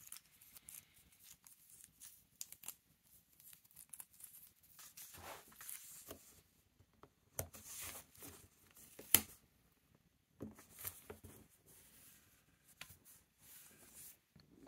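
Washi tape being pulled off its roll and pressed onto a paper journal page: faint peeling, paper rustling and small clicks, with one sharp click about nine seconds in.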